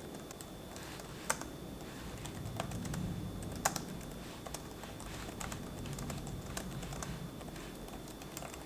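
Typing on a computer keyboard: a run of soft, irregular key clicks with a couple of sharper taps.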